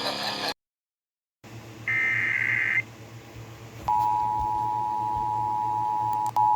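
Emergency Alert System broadcast beginning: music cuts off about half a second in and is followed by a short silent gap, then a burst of high data tones lasting about a second (an EAS header burst). From about four seconds in the steady two-tone EAS attention signal sounds, with a brief blip near the end.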